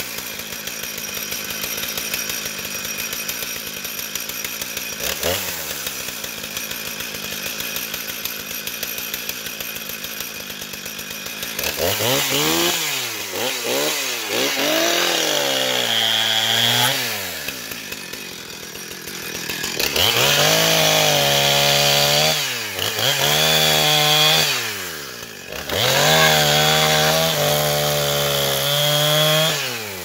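Chainsaw fitted with a Husqvarna X-Cut chain idling steadily, with one brief blip of the throttle about five seconds in. About twelve seconds in it is revved up and down, then held at high revs through three longer cuts into oak slabwood, dropping back between them.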